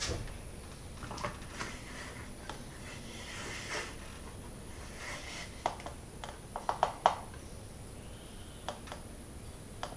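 Scattered light clicks and knocks from handling a screw-in LED garage light fixture, with a quick run of sharper clicks about six to seven seconds in.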